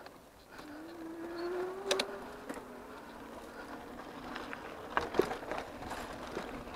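An e-bike's electric motor whining, its pitch rising for a second or two as the bike picks up speed, then holding steady. A few sharp clicks and knocks come from the bike going over the rough sand trail, one about two seconds in and a cluster about five seconds in.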